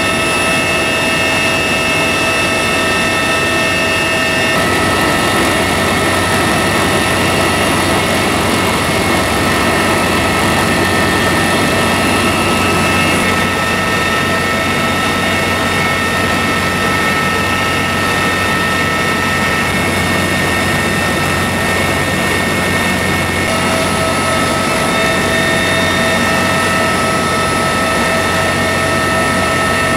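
Loud, steady cabin noise of a CH-53E Super Stallion heavy-lift helicopter in flight: its three turboshaft engines, rotor and gearbox running, with a few steady high whining tones over the noise. The rear ramp is open, so the cabin is also full of rushing air.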